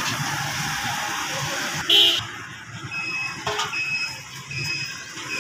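Street-market background noise, broken about two seconds in by a brief, loud high tone. After it comes a run of short, high electronic beeps, repeating every second or less.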